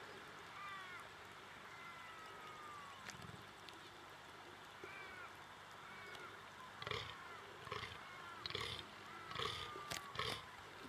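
Fallow buck groaning in the rut: a series of about six short, deep, belching groans, less than a second apart, starting about seven seconds in. Small birds whistle faintly before them.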